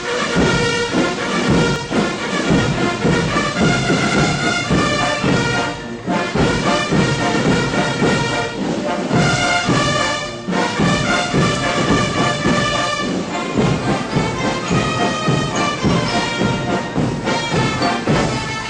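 Drill beat: a loud, steady rap instrumental with brass and orchestral layers over a pulsing low-end rhythm, dropping out briefly a couple of times.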